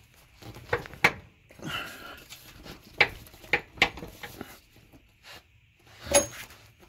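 Metal clicks and clunks of a half-inch-drive ratchet and 13 mm socket on a long extension being worked against a very tight bumper bolt. The knocks come irregularly, about half a dozen, the loudest about a second in, three seconds in and near the end.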